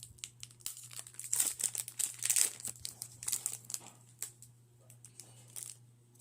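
Foil wrapper of a Pokémon booster pack crinkling and tearing as it is pulled open by hand, a dense run of crackles that is busiest in the middle and dies away near the end.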